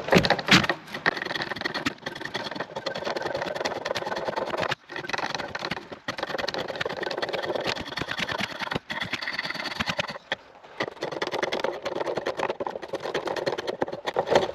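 Chestnut spindle being turned on a foot-treadled pole lathe: the tool scrapes and chatters against the spinning wood in long cutting strokes, broken by short pauses every few seconds as the treadle and pole reverse.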